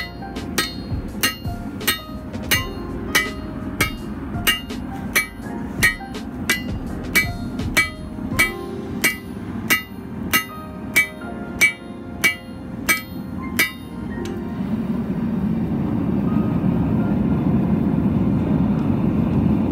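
A 1 kg hammer striking a red-hot railroad spike on a steel anvil, about one and a half blows a second, each blow ringing briefly. About fourteen seconds in the blows stop and a steady rushing noise of the forge takes over, growing louder.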